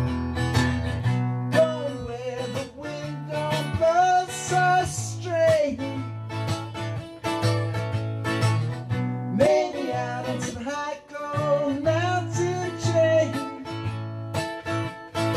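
Solo guitar instrumental break between sung verses: steady repeating bass notes under a lead line with bent, wavering notes.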